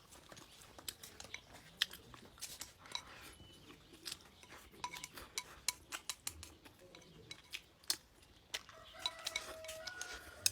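Eating at a table: irregular sharp clicks and clinks of utensils against dishes, with some chewing. A few short steady tones sound near the end.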